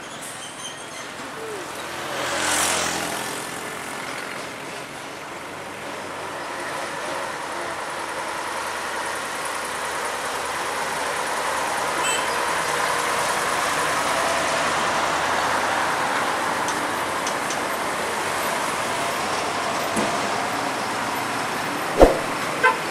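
Heavy tractor-trailer trucks passing close on a highway, their diesel engines and tyres growing louder to a peak around the middle as one drives by. A short hiss of air about two seconds in, like an air-brake release, and a sharp knock near the end.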